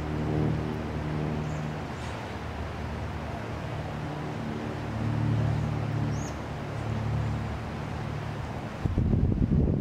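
A steady low engine drone that swells and fades, with wind buffeting the microphone loudly from near the end.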